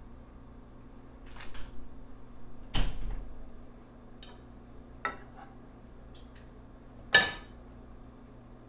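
Kitchen counter handling sounds: a brief rustle, a thump about three seconds in, a few light clicks, and a sharp knock near the end, the loudest of them.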